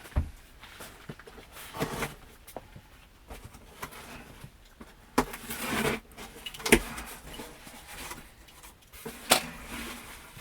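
Cardboard boxes and packaging being handled and unpacked by hand: irregular knocks and thumps with short stretches of scraping and rustling. The sharpest knocks come right at the start, about two-thirds of the way through and near the end.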